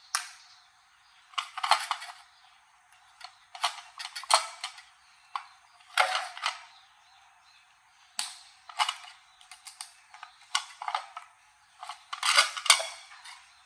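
Sharp clicks and knocks at irregular spacing, some in quick clusters, from hand work on the parts of an old toaster.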